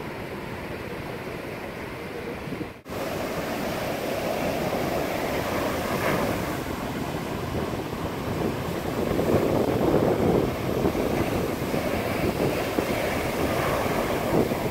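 Rough sea surf: waves breaking and washing over rocks and onto a sandy beach, a continuous surging rush, with wind buffeting the microphone. It gets louder after a brief break about three seconds in.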